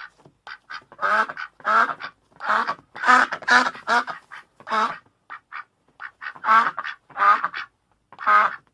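Duck quacking: a run of loud, nasal quacks, often two or three a second, with a few shorter, fainter calls between them, mostly in a lull about five to six seconds in.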